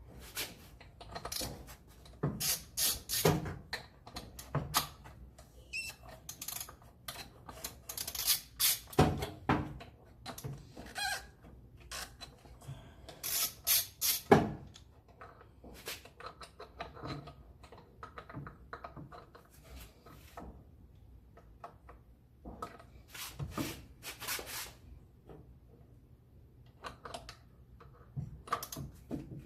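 Irregular clicks, clinks and knocks of hand tools working on metal parts, in scattered bursts with short pauses between.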